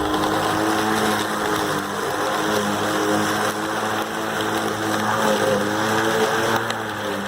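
Greenworks 40V cordless electric push lawn mower running, a steady motor hum with a blade whine whose pitch wavers as it cuts.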